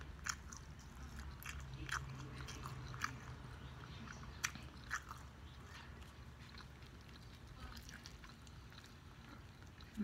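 A person chewing a mouthful of fried perch with the mouth closed: soft wet mouth clicks and smacks. They come every second or so at first and thin out in the second half.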